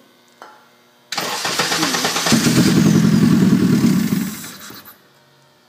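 Honda R18A inline-four engine on a bare test stand being started: the starter cranks it from about a second in, the engine catches about two seconds in and runs briefly, then dies away about four seconds in.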